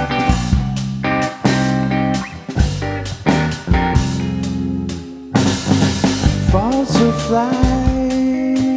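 A rock band playing a song live: drum kit, guitars and bass in an instrumental passage, with sliding, bending notes about two-thirds of the way through.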